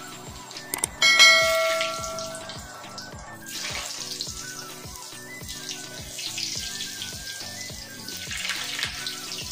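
Potatoes deep-frying in hot oil in a karahi: a steady sizzle and bubbling. Under it runs background music with an even beat, and about a second in a couple of clicks and a bright chime ring out and fade, the loudest sound here.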